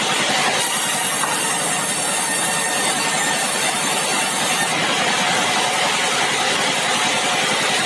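Sawmill machinery running steadily, a loud, even mechanical noise; a high hiss in it brightens about half a second in and drops back near five seconds.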